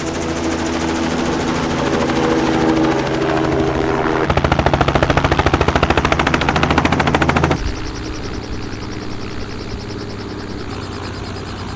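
Helicopter running, its rotor blades chopping in a rapid, even pulse over a steady engine drone. The sound changes abruptly twice, about four seconds in and again about seven and a half seconds in, after which it is quieter.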